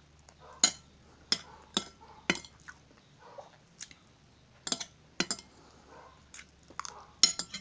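Metal spoon and fork clinking and scraping against a plate while scooping up rice and scrambled eggs, in about ten sharp, irregular clinks.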